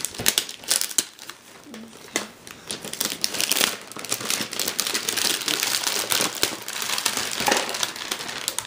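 Shiny gift wrapping paper being torn and crumpled by hands: a continuous crinkling rustle with sharp rips now and then.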